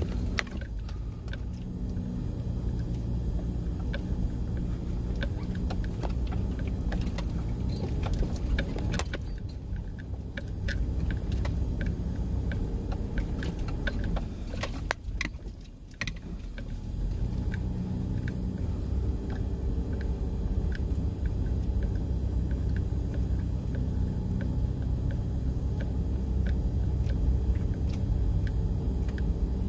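Car driving through soft, deep sand, heard from inside the cabin: a steady engine and tyre rumble with light rattling clicks from the interior. The rumble drops briefly about halfway through, then picks up again.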